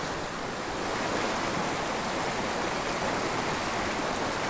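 Small mountain creek rushing and babbling over rocks: a steady noise of running water.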